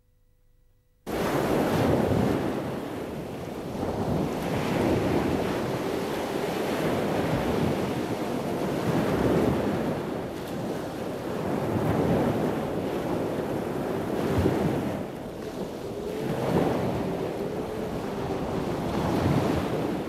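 Sea waves surging and breaking with wind, the noise swelling and easing every few seconds; it starts abruptly about a second in. A faint wavering tone sits over it in the last few seconds.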